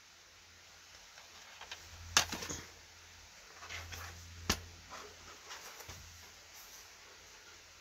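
Plastic DVD cases being handled and set down: a few sharp clicks and knocks, the clearest about two seconds in and again about four and a half seconds in, with lighter ticks and rustling between them.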